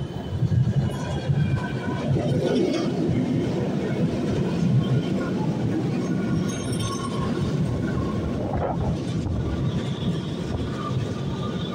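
İzmir Metro train pulling into the platform, its cars rolling past close by: a steady rumble with a thin whine above it.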